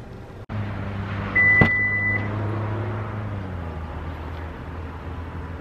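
Toyota RAV4 power liftgate in motion: a single high beep just under a second long, with a latch click in the middle of it, over the steady low hum of the liftgate motor.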